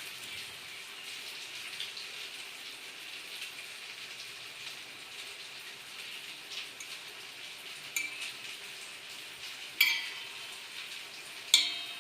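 Hands working oiled maida dough into parotta balls: a faint, steady hiss with a few sharp clicks or clinks, the loudest two near the end.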